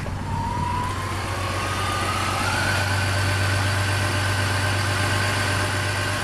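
BMW E39's engine idling just after being restarted following a CCV valve and spark plug replacement, a steady low hum with a thin whine that rises in pitch over the first two or three seconds and then holds steady.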